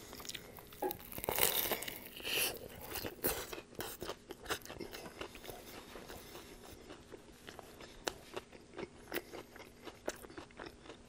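Chewing a bite of a naked chicken chalupa, its breaded, fried chicken-breast shell crunching with crisp crackles. The crunching is thickest in the first couple of seconds, then thins to scattered clicks.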